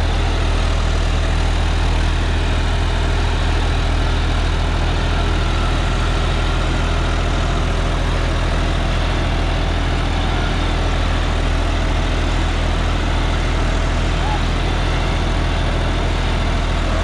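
John Deere 5405 tractor's three-cylinder diesel engine running steadily under load while pulling a 10-foot rotavator through dry soil with the PTO engaged.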